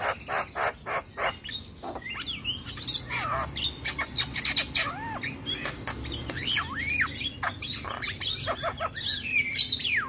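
Male Javan myna (jalak kebo) singing a varied chattering song: harsh rasping notes, sharp clicks and rising and falling whistles in quick succession.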